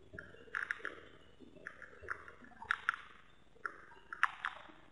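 Small waves slapping and splashing against the hull of a radio-controlled sailing yacht, picked up by a camera on its deck, in irregular short bursts every half second to a second, the sharpest near the end.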